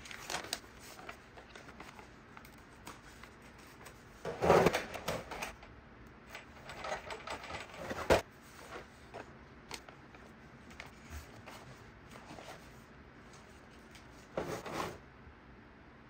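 The plastic body of a Hot Wheels Service Center playset being handled and folded shut, giving hollow plastic knocks and scrapes. The loudest cluster comes about four seconds in, a sharp click about eight seconds in, and a few more knocks near the end.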